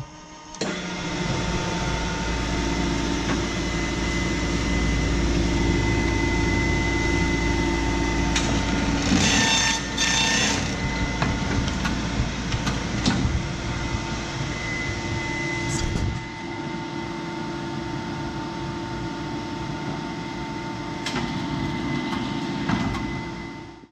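Horizon BQ-240L perfect binder running with its spine-milling unit switched on: a steady machine rumble with a thin whine. About ten seconds in a louder, hissing burst lasts roughly two seconds, and from about sixteen seconds the running goes on a little quieter until it stops at the very end.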